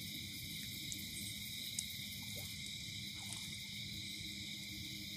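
Steady nighttime chorus of insects, a continuous shrill drone, over low even background noise; a single faint click a little under two seconds in.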